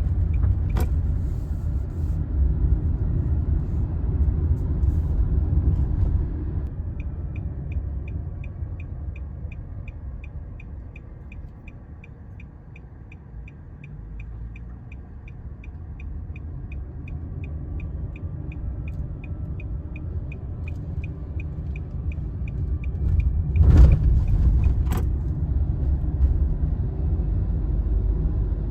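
Road rumble inside a moving car, dying down about halfway through as the car slows and then building again as it picks up speed. Through the middle the turn signal ticks steadily, about three clicks a second, and a single loud thump comes near the end.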